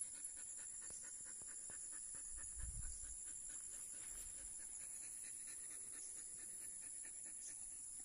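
Belgian Malinois panting rapidly with its tongue hanging out, tired from exertion.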